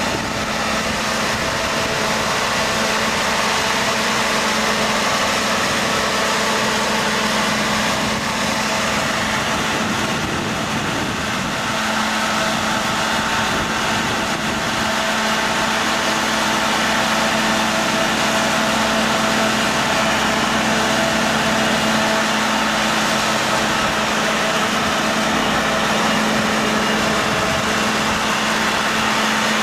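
An engine running steadily at a constant speed, with a continuous hum.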